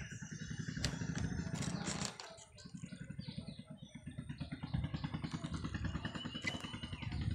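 An engine running nearby with a fast, even low throb. It fades briefly about two seconds in, then picks up again.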